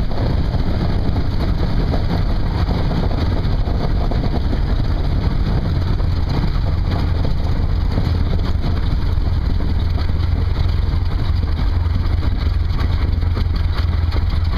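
Aeronca Champion's 90 hp Continental four-cylinder air-cooled engine running steadily at low taxi power, heard from inside the small fabric-covered cabin with a deep, even drone.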